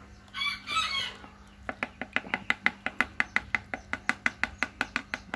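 Chicken vocalising: a short call about half a second in, then a fast, even run of sharp clucks, about six a second, to the end.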